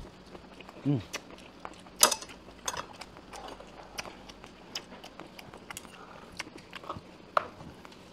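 Eating sounds: a lettuce wrap of stir-fried pork being bitten and chewed, heard as many short irregular crunches and clicks, the loudest about two seconds in and again near the end.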